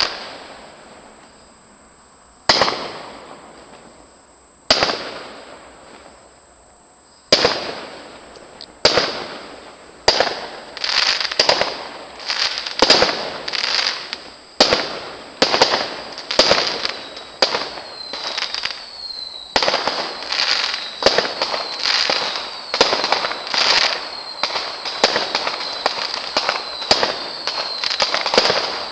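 Aerial fireworks display: shell bursts bang and echo away, a few seconds apart at first, then coming in quick succession from about ten seconds in.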